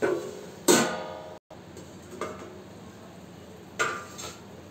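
A steel plate lid is set on a metal kadhai with a ringing clang about a second in. A second ringing metal clang follows a few seconds later.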